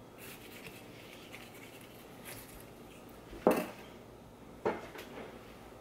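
Kitchen knife working through a watermelon's rind with faint scraping, then two sharp knocks, the louder one about three and a half seconds in and a smaller one about a second later.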